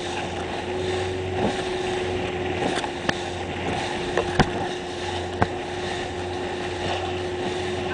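Motorboat engine running steadily, a constant hum under wind and water noise, with a few short sharp knocks scattered through.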